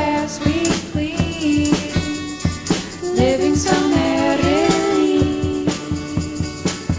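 Background music: a pop song with a woman's sung vocal and a steady beat.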